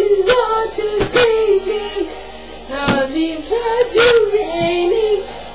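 A girl singing loudly, holding and sliding between notes, her voice overloading a webcam microphone so it distorts with sharp crackles.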